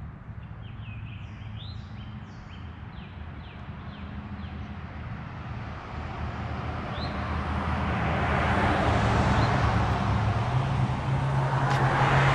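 A motor vehicle passing, its engine and tyre noise growing steadily louder from about halfway in, over a constant low hum. Birds chirp a few times in the first few seconds.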